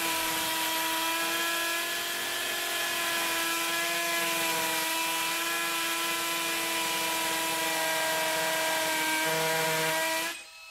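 Cordless 18 V brushless hammer drill (a Makita replica) drilling into hard concrete in hammer mode. A steady motor whine runs over the noise of the bit hammering into the floor. It holds one even speed throughout and stops just before the end.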